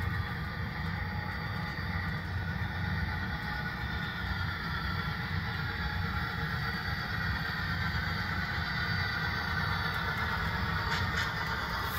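HO-scale model Santa Fe FP45 diesel locomotive and passenger cars running along the layout track, a steady mechanical running noise.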